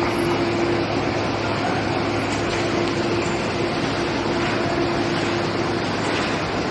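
Steady, loud whirring of industrial machinery at an aluminium billet homogenizing furnace, with a constant low hum and no breaks.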